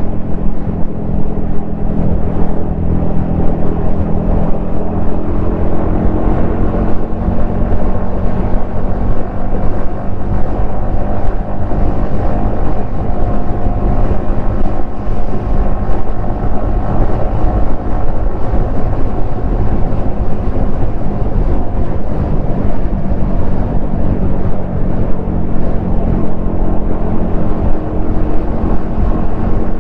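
Yamaha XSR155's single-cylinder four-stroke engine pulling at a steady cruising speed, its exhaust note nearly constant in pitch, with wind rumble on the helmet-mounted microphone.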